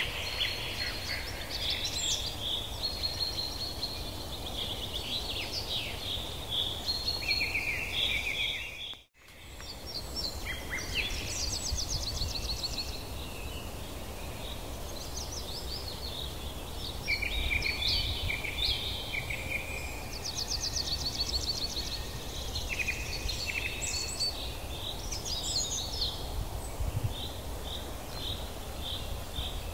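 Several songbirds chirping and trilling over a steady low rumble of outdoor ambience. The sound cuts out briefly about nine seconds in, then carries on.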